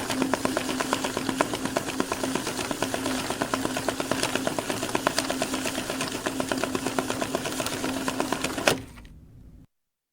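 Banknote counting machine running, feeding bills through with a steady hum and rapid clicking, then stopping with a sharp click near the end.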